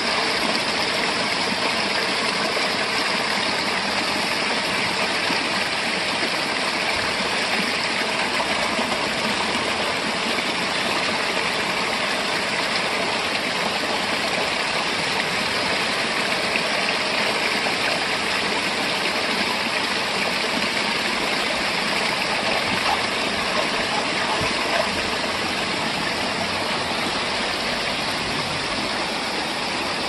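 A small waterfall spilling over boulders: a steady, unbroken rush of water.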